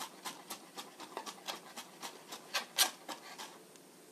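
Chef's knife mincing garlic on a cutting board: quick strikes of the blade on the board, about four a second, stopping shortly before the end.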